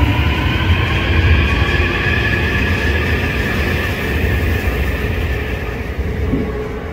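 Busan Metro Line 3 train (Hyundai Rotem, retrofitted with IGBT-VVVF inverters) pulling away from the platform: the inverter whine rises in pitch as the train accelerates, over a steady rumble of wheels on rail, growing fainter toward the end.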